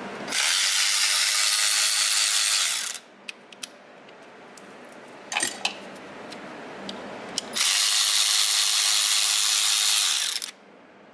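Electric ratchet running in two bursts of about three seconds each, undoing bolts, with a few sharp clicks between the runs.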